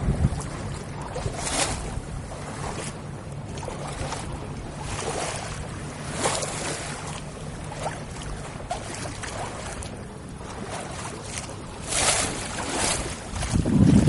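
Water washing and splashing along the hull of a moving boat in several brief surges, over a steady low hum. Loud wind rumble on the microphone comes in near the end.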